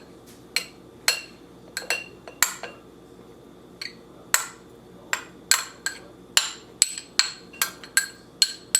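Crushed ginger being scooped and knocked into a glass jar: a string of sharp clinks and taps of a utensil against the glass, each with a brief high ring, coming faster in the second half.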